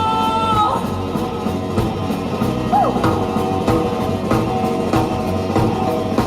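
Rock band playing an instrumental passage with drum kit and guitar at a steady beat. A held sung note ends about half a second in, and a short "woo!" yell comes near the middle.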